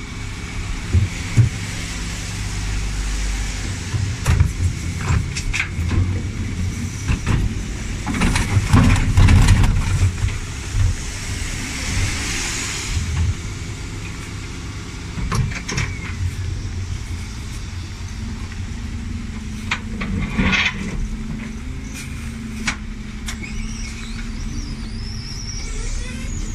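Dennis Elite 6 refuse truck idling while its Terberg bin lift raises and tips plastic wheelie bins. Plastic bins knock and clatter against the lift throughout, loudest from about a third of the way in to about halfway, with another sharp bang about three quarters of the way through.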